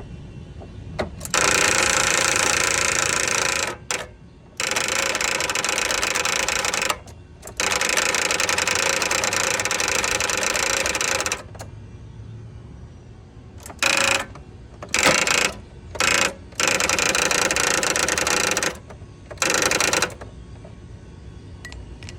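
Toro TimeCutter riding mower's electric starter motor cranking with the key, in three long tries of a few seconds each, then several short bursts and one longer one. The owner calls the starter bad.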